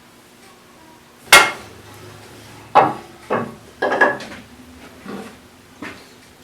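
A series of wooden knocks and clatters as wood pieces and tools are handled and set down on a hard work surface: one loud knock about a second in, then five more over the next few seconds.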